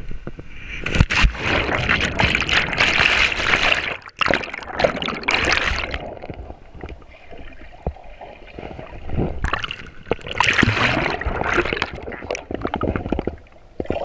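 River water splashing and gurgling around a camera as it goes in and under the surface, heard muffled from underwater. There are loud stretches of splashing from about a second in to four seconds, again around five seconds, and from about nine and a half to thirteen seconds, with quieter water noise between them.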